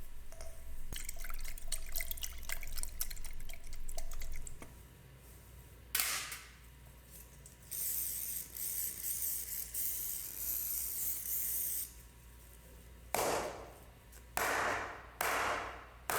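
Liquid dripping and spraying on small metal gun parts: a run of light clicks and ticks for the first few seconds, then short hissing sprays, one of them lasting about four seconds, at a stage of the Desert Eagle's cold-bluing and cleaning.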